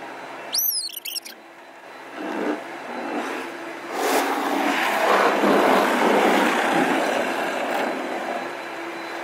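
Automatic car wash heard from inside the car: water and soap spraying and cloth brushes scrubbing over the windshield. It builds up and is loudest through the middle, over a low steady hum. A short high squeal comes about a second in.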